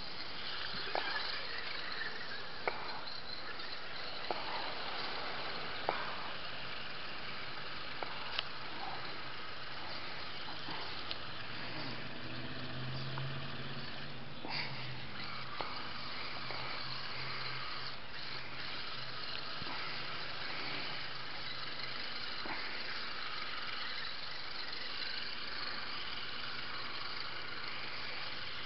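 Steady rain hiss with scattered sharp taps in the first few seconds, while an electric RC rock crawler's motor whines as it drives into the water-filled ditch. A low hum comes in about twelve seconds in and comes and goes.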